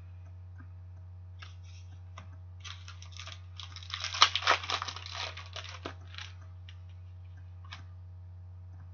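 Clear plastic trading-card sleeve crinkling and rustling as a hockey card is handled and slipped into it, in a cluster of quick rustles lasting about three seconds in the middle.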